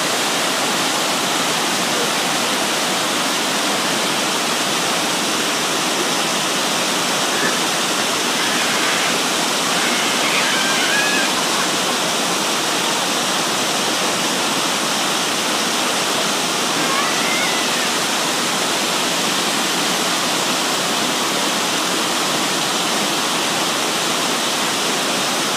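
Small waterfall pouring into a rocky stream pool: a steady, even rush of water.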